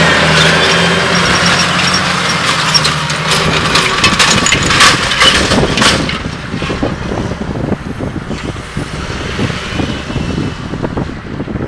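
John Deere 8530 tractor's six-cylinder diesel engine working under load, pulling a Horsch Tiger 5 AS cultivator, with the rattle and clatter of the cultivator's steel discs, tines and packer rollers in the soil. It is loudest in the first few seconds as it passes close, then fades about six seconds in as the rig moves away.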